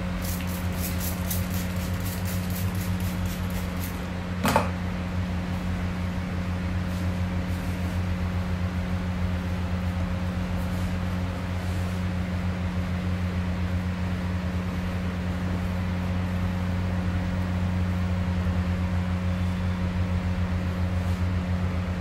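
Steady low electric motor hum. A fast patter of faint ticks sounds over it for the first few seconds, and a single sharp knock comes about four and a half seconds in.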